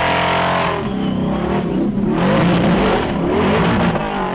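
Off-road buggy engine revving hard under load as it climbs a steep sand hill. Its pitch rises at first, then wavers rapidly up and down as the throttle works.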